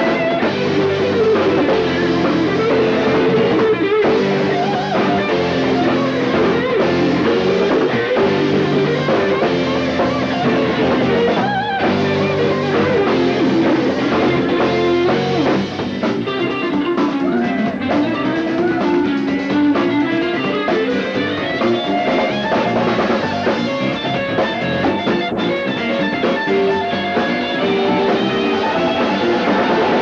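Rock band playing live: electric guitars over a drum kit with cymbals, loud and steady throughout.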